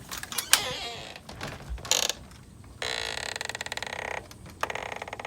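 A few sharp clicks and a knock, then a rapid mechanical ratcheting buzz that runs for over a second, stops, and starts again near the end.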